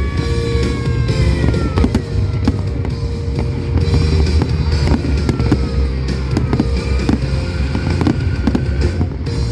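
Fireworks bursting and crackling in rapid succession over loud music with heavy bass.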